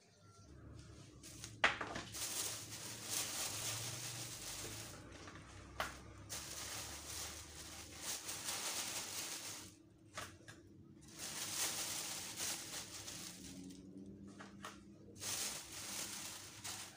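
A clear plastic bag crinkling and rustling as it is handled, with a sharp click about two seconds in and another near six seconds, and brief pauses about ten and fourteen seconds in.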